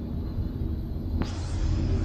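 Low, steady rumble of street traffic, with a hiss that comes in sharply just over a second in.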